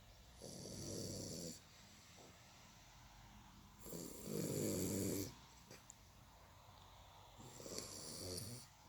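Four-month-old Continental Bulldog puppy snoring: three snores, each about a second long, coming roughly every three and a half seconds.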